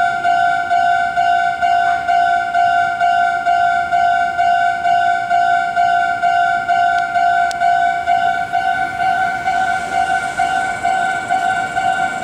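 Japanese level-crossing warning bell ringing, an electronic two-tone ding repeating at a steady, quick pace. About three-quarters of the way in, the noise of an approaching train starts to rise beneath it.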